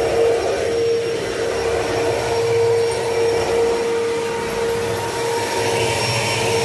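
Bissell PowerGlide bagged pet vacuum cleaner running: a steady motor whine over airflow hiss, swelling and dipping slightly in loudness.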